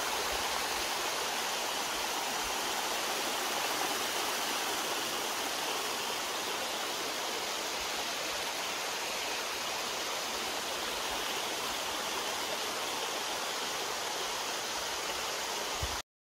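Mountain stream water rushing over rocks at a waterfall: a steady, even rush that cuts off suddenly near the end.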